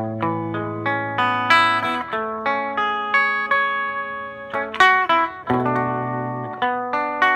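Gibson solid-body electric guitar played through a delay, picking a slow hymn melody note by note over held low notes, each note ringing on.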